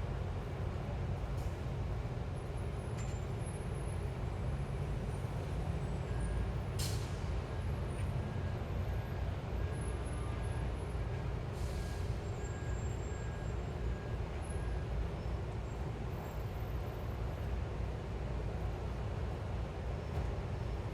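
City street traffic: a steady low rumble of passing vehicles, with two short hisses a few seconds apart near the middle and faint repeated beeping for a while in the middle.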